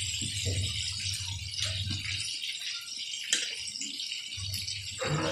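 Chicken pieces deep-frying in hot oil in a large aluminium wok, sizzling steadily, with one sharp click of metal tongs against the pan a little over three seconds in.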